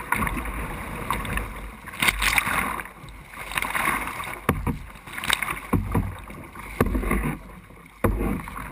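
Water splashing and sloshing against a plastic kayak hull as it is paddled through small breaking surf, with sudden surges of splash every second or two from paddle strokes and waves.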